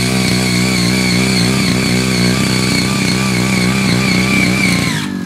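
Ching Yee CY80 mini power tiller's 78.5 cc engine running steadily under load as its six rotary tilling blades churn soil and weeds, with a steady high whine over the engine. About five seconds in, the engine note drops suddenly.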